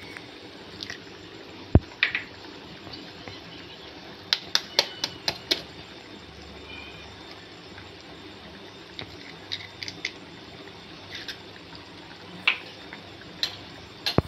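Masala gravy simmering in an aluminium kadai with a steady quiet bubbling, broken by scattered sharp clicks and taps as eggs are cracked into it: the loudest about two seconds in, and a quick run of them around five seconds in.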